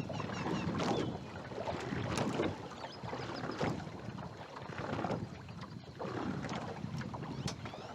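Wind buffeting the microphone, rising and falling in uneven gusts about every second or two.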